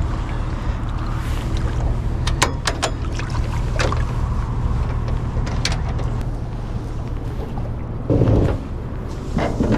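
Boat being launched off its trailer: sharp knocks and clunks of the hull and trailer fittings over a steady low rumble, with a heavier thump near the end.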